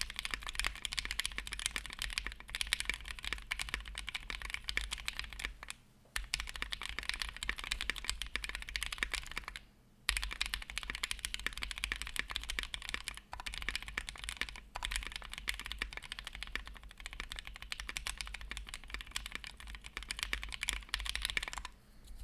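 Continuous typing on an IDB60 custom mechanical keyboard with lubed Alpaca linear switches, GMK screw-in stabilizers and GMK Metropolis keycaps: a dense run of keystrokes with short pauses about six and ten seconds in.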